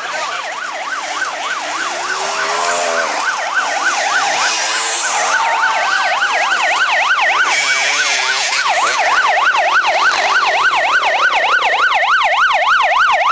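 Emergency vehicle siren in a fast up-and-down yelp, several sweeps a second, growing steadily louder. Dirt bike engines rev underneath it early on and again partway through.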